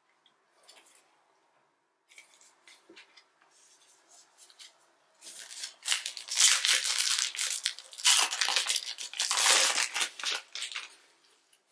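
Plastic wrapper of a Panini Prizm Draft Picks trading-card pack being torn open and crinkled, loud for about five seconds from about halfway in, after a few seconds of faint handling.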